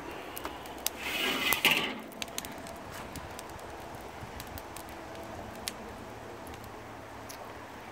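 Lit charcoal in a Weber kettle grill giving a low steady hiss with a few sharp ticks and crackles. A brief scrubbing noise about a second in comes from the cooking grate being cleaned.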